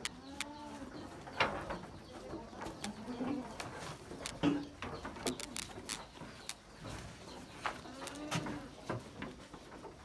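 Goats moving and feeding in a wooden shed: scattered knocks, clicks and rustles of hooves and leafy fodder, with a short low animal call about half a second in and another around eight seconds in.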